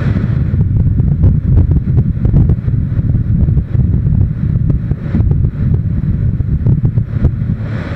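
Heavy wind buffeting on the microphone of a camera on a moving motorcycle: a loud, unsteady low rumble that never lets up.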